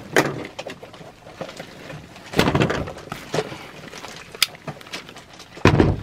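Tools being handled and set down on a workbench: a few separate knocks and clunks, the heaviest about two and a half seconds in and near the end, with a sharp click between them.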